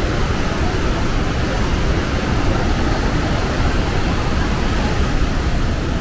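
Saraswati river torrent rushing through the gorge under Bhim Pul: a loud, steady noise of white water.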